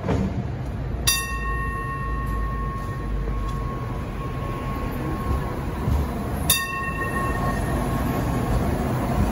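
MTR Light Rail Phase I car moving off from the platform, its motors and wheels giving a steady low rumble. The car's warning gong sounds twice, about five seconds apart, and each strike rings on for several seconds as it fades.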